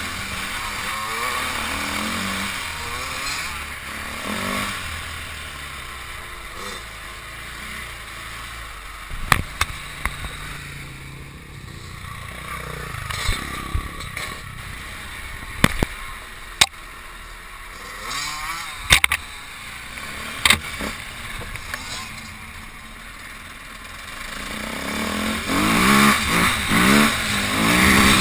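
Dirt bike engine heard from on the bike, revving up and down on a trail, then running quieter with several sharp knocks and rattles in the middle. Near the end it revs hard again in a string of rising pulls as the bike accelerates.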